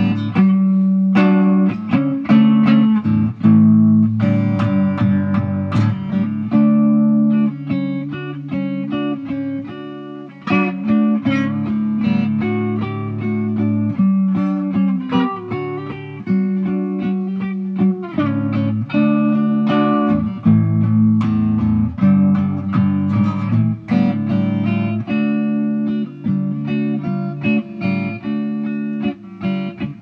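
Instrumental music led by an electric guitar playing picked notes, with low sustained bass notes underneath.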